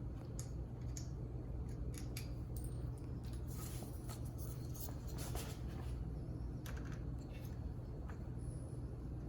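Light metal clicks and scrapes as door knob and latch parts are handled and fitted, over a steady low hum.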